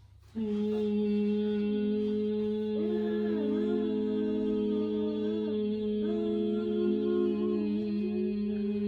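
Several people humming together in bhramari (bee breath), starting about half a second in: one steady low hum held throughout, with higher hums wavering and overlapping on top of it.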